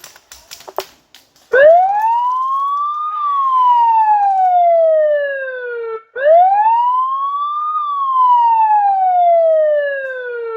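A siren wailing twice: each wail rises quickly in pitch, then falls slowly over a few seconds, the second starting about halfway through. It signals the end of the game round.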